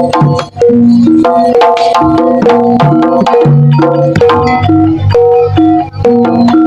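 Jaranan dance accompaniment: a busy melody of short, pitched notes in an organ-like keyboard sound over drumming.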